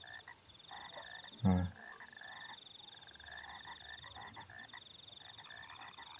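A steady background chorus of small calling animals, most likely frogs: a high rippling trill that breaks off now and then, with softer repeated calls lower down. About one and a half seconds in, a brief loud voice sound cuts in.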